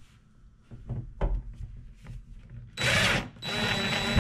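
DeWalt 20V MAX cordless drill driving a screw into a plastic wall anchor in drywall; the screw spreads the anchor as it goes in. A few light knocks come first, then the drill runs for about a second and a half from about three seconds in, with a steady high whine, and stops with a thump.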